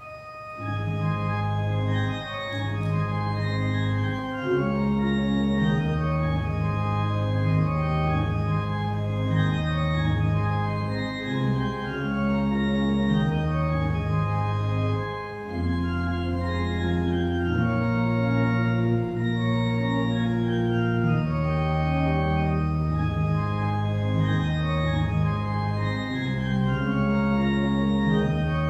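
Pipe organ playing slow, sustained chords over deep bass notes, coming in just after the start.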